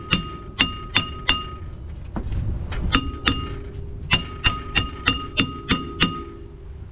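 Hammer blows on a metal brake part, each strike ringing briefly. The blows come in three bursts, the last one a steady run of about three a second.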